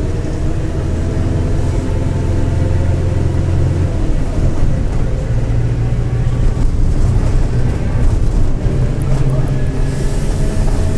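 Mercedes-Benz OF-1721 BlueTec 5 city bus running on the road, heard from on board, with its diesel engine note rising about four seconds in. The title names a growling bearing on this bus, a sign of a worn bearing. A brief hiss comes near the end.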